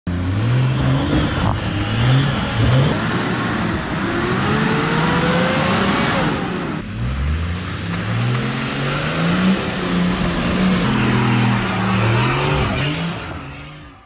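Four-wheel-drive engines revving up and down repeatedly while driving rough, muddy off-road tracks, across a few abruptly cut clips. The sound fades out near the end.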